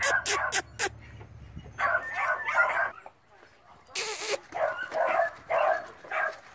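Beagle yipping and whimpering in short bursts. There are a few sharp clicks in the first second and a short rushing noise about four seconds in.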